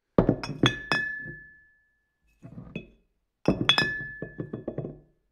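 Sound effect of clinks and sharp knocks with a glassy ring: a quick run of strikes, a few faint ones, then a second run about three seconds after the first. A single ringing note hangs on after the louder strikes of each run.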